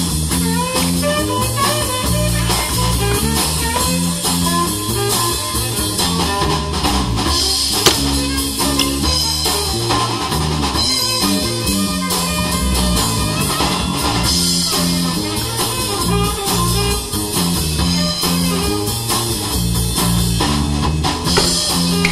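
Soundtrack music: a guitar-led track with bass and drums keeping a steady beat. A single sharp click about eight seconds in.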